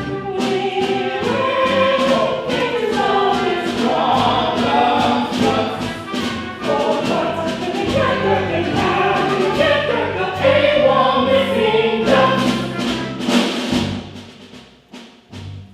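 A stage-musical ensemble singing a choral number over instrumental accompaniment with a steady beat. The music drops away near the end.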